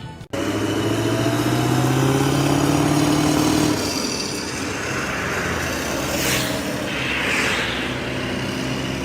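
An engine revving, its pitch rising for about three seconds, then dropping back to a steady run, with two short hissing rushes near the end.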